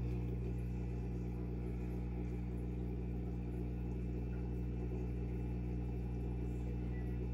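Steady low electrical hum of an aquarium pump, running without change.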